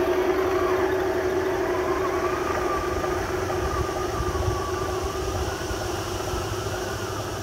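Radio-controlled model Tiger tank running as it drives away, a steady whine with a wavering higher tone that slowly fades. Wind rumbles on the microphone throughout.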